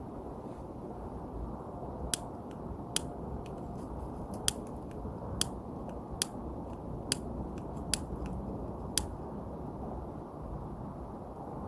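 Eight sharp, short clicks, roughly one a second, over a steady low hiss.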